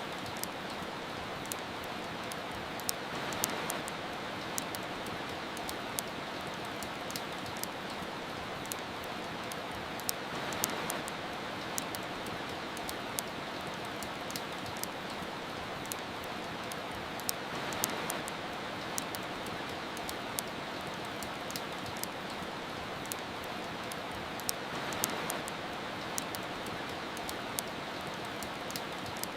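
Steady hiss of soft rain mixed with the frequent sharp pops and crackles of a wood fire, with a gentle swell in the rain about every seven seconds.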